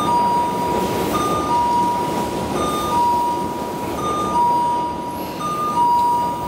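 Station platform chime sounding a repeated two-note ding-dong, a short higher note then a longer lower one, about every second and a half, over the running noise of a Tobu 10030 series electric train pulling into the platform.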